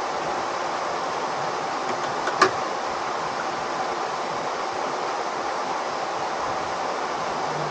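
Steady rushing noise, with a single sharp click about two and a half seconds in.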